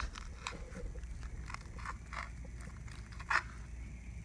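Knife cutting through small bait fish on a plastic cutting board: a few short, soft scrapes and crunches at uneven intervals, the loudest about three seconds in.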